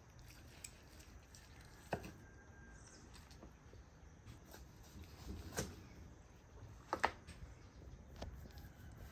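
Knife carving a whole roasted turkey on a wooden cutting board: faint cutting through crisp skin and meat, broken by a few sharp clicks and knocks, the loudest a double knock about seven seconds in.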